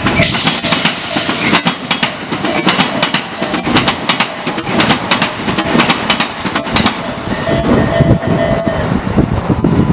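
Tobu Isesaki Line train passing over the level crossing: a loud, steady run of wheels clattering in quick clicks over the rail joints and crossing.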